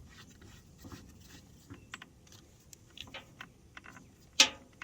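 Scattered light clicks and taps of tools and metal parts being handled while parts are fastened onto a pressure washer, with one sharp, much louder clack near the end.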